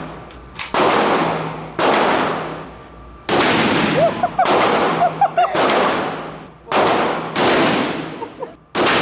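Gunshots fired one at a time at an irregular pace, about seven loud shots in nine seconds, each cracking and then ringing off in a long echo from the range's walls.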